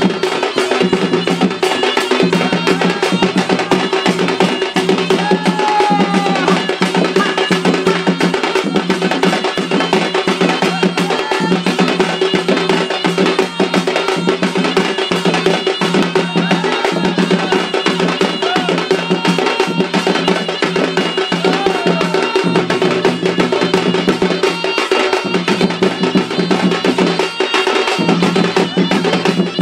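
Odisha tribal folk music for the Singari dance: fast, dense drumming on a two-headed barrel drum over a steady held pitch.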